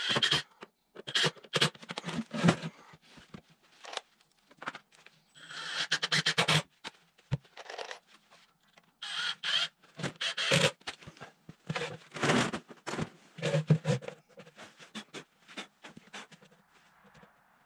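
Irregular scraping and knocking as a wooden 2x6 concrete form is handled and shifted on a concrete floor, with the rustle of a heavy jacket and gloves.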